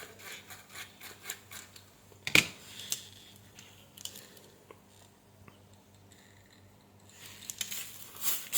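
A soldering iron tip scraping and rubbing against a tip refresher and cleaning pad, to clean off oxidation, in light scratchy strokes with one sharp click a little over two seconds in. It goes nearly quiet for a few seconds in the middle, and quick scraping strokes start again near the end.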